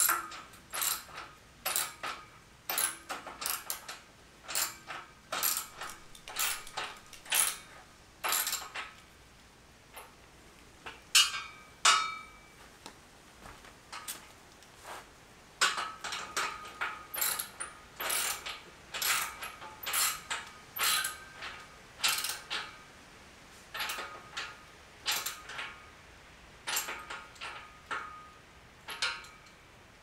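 Ratchet wrench clicking in quick runs of short strokes as bolts are turned on a steel dumbbell rack frame, with a pause of a few seconds near the middle.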